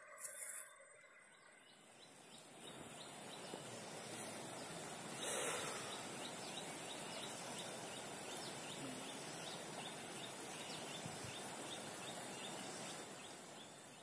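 Steady outdoor noise with a run of short, high, quickly repeated animal calls.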